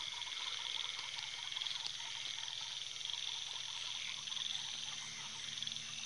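Night chorus of frogs croaking in quick repeated calls over a steady high trill of crickets and other insects.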